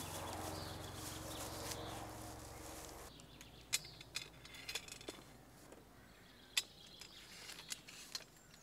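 Plastic packaging rustling, then light clicks and taps of aluminium chainsaw-mill parts being handled, a few sharp ones spread over the last five seconds.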